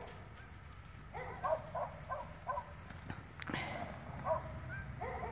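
A run of short, pitched animal calls, several a second, coming in bursts, with a few sharp knocks of horse hooves on frozen ground as a horse walks off.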